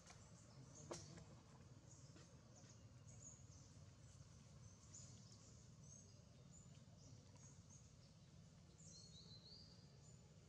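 Near silence: faint forest ambience with a steady low hum and scattered faint high bird chirps, and one faint click about a second in.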